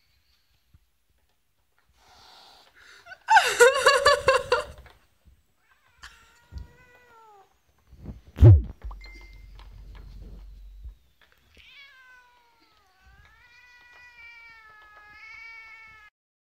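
Abyssinian cat yowling in displeasure: a loud rough yowl about three seconds in, a shorter falling cry around six seconds, then a long wavering yowl near the end. A single low thump comes about halfway through.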